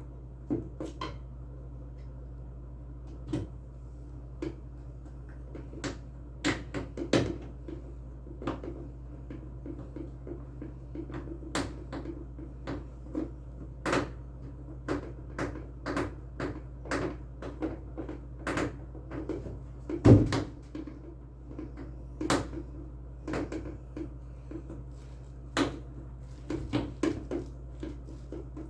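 Irregular clicks and knocks of parts and tools being handled while a washing machine is reassembled, with one louder knock about twenty seconds in, over a steady low hum.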